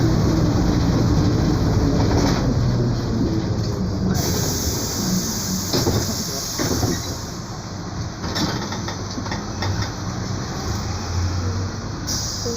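Mercedes-Benz OF 1721 BlueTec 5 bus under way, with engine and running noise, a few short knocks and rattles, and a growling rear differential. The level eases off after about four seconds.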